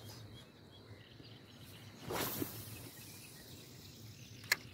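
Faint outdoor ambience with a brief rustle about two seconds in and a sharp click near the end, as fishing tackle is handled close to the microphone.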